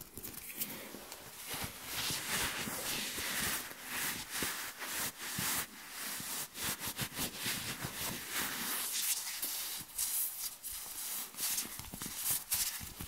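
Close-miked ASMR hand sounds: palms and fingers rubbing and brushing right at the microphone, an irregular rustle broken by many crisp little clicks and crackles.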